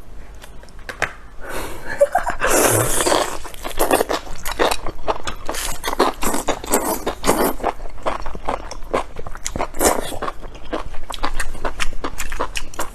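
Close-miked eating of enoki mushrooms: biting and chewing, heard as a dense run of short clicks.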